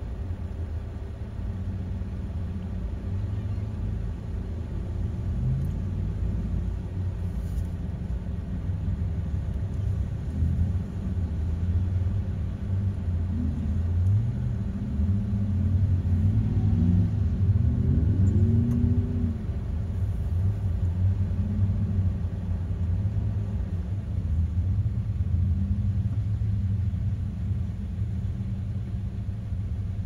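Pickup truck engines rumbling low and revving as the trucks push through a shallow creek on sand, the engine note rising and falling several times and loudest around the middle.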